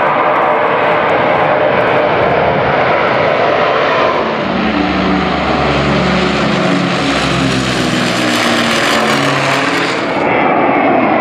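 Aircraft engines passing overhead, loud and continuous. The first few seconds are jet engine noise. From about four seconds in comes the beat of a four-engine propeller airliner, with tones that fall in pitch as it passes. About ten seconds in the sound cuts to another jet.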